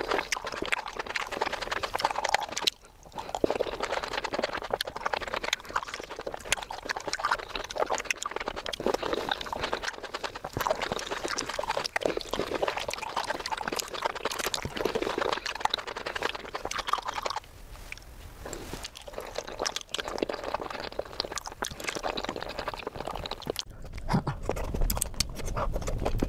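Close-miked ASMR eating of fresh fruit: wet chewing and mouth sounds with many small clicks and smacks, broken by a short pause about three seconds in.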